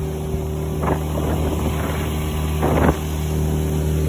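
A motor running steadily with a constant hum, with two brief rushing noises about one second and nearly three seconds in.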